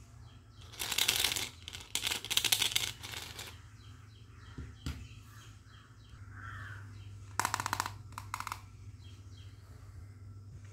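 Small metal wire toy basket with plastic toy fruit in it being handled, rattling and clattering in two bursts in the first few seconds and again briefly about seven and a half seconds in, over a low steady hum.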